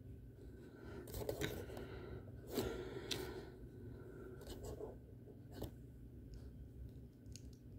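Small plastic toy pieces handled and pressed together by fingers: a string of sharp clicks and snaps with light handling noise between, the loudest snap about two and a half seconds in.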